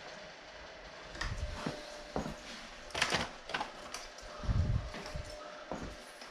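Irregular clicks, taps and light knocks of small parts and hand tools being handled during wiring work on the handlebar, over a faint steady hum.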